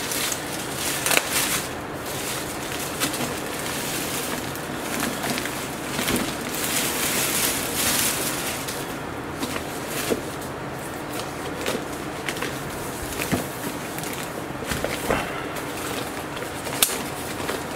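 Plastic packaging rustling and crinkling as it is pulled off a motorcycle fairing panel, with scattered sharp crackles.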